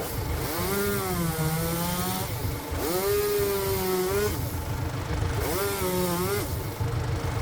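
Single-cylinder diesel engine of a two-wheel power tiller running with a steady low rumble, driving a log splitter through tough acacia wood. A high whine rises, holds and falls four times, each lasting about half a second to a second and a half.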